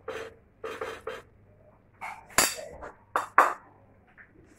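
A metal spoon scraping and clinking against a frying pan while spreading filling over dough, in a series of short scrapes with a sharp clink about two and a half seconds in and two more just after three seconds.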